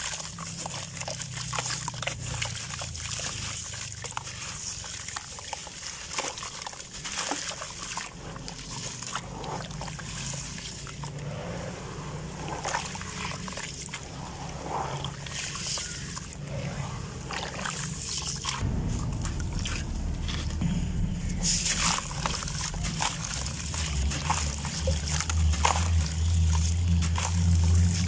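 Wet gritty sand-and-gravel clumps being crumbled and squeezed by hand in a basin of water: sloshing, splashing and trickling, with many small crackles of grit. A low rumble runs underneath and grows louder about two-thirds of the way through.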